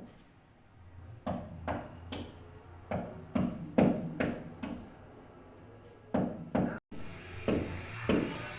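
A series of irregular sharp knocks, about one or two a second. Near the end a brief dropout comes, and after it a steady noisy background joins the knocks.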